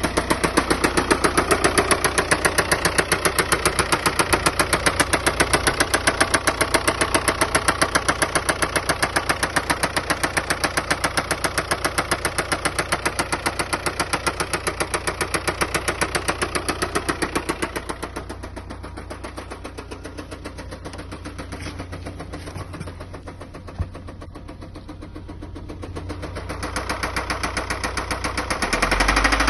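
VW Passat B6 2.0 TDI (BKP) four-cylinder diesel running with a rapid, even, loud knock. It is the sign of a spun rod-bearing shell on cylinder 4, which ended in a full engine rebuild. The knock fades for several seconds about two-thirds of the way through, then comes back louder near the end.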